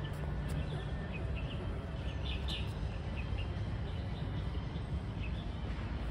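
Birds chirping in short scattered calls, a few in a quick cluster about two and a half seconds in, over a steady low outdoor rumble.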